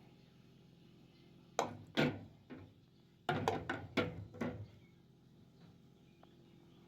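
A quick series of about ten sharp knocks and clatters, two or three at first and then a faster run of several, over about three seconds, as of hard objects being handled and set down.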